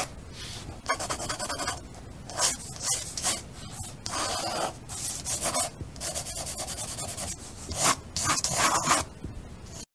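Pencil scribbling and shading on paper: a series of irregular scratchy strokes of varying strength.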